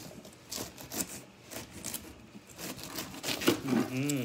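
Crisp, wet crunching and crackling strokes, roughly two a second, typical of someone chewing pineapple. A brief hummed voice sound comes near the end.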